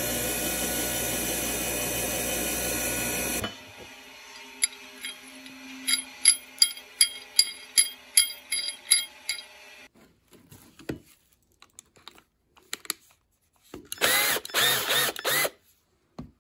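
A power tool runs steadily and cuts off after about three and a half seconds. Then comes a run of sharp light metallic clicks, about three a second, as the pipe wrench's hook jaw and knurled adjusting nut are worked by hand. Near the end a drill fitted with a wire wheel brush gives a short burst, its pitch swinging up and down.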